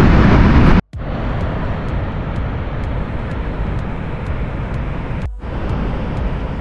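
Steady outdoor street noise with passing traffic, a dense low rumble with no clear single event. It is broken by two abrupt cuts, about a second in and about five seconds in.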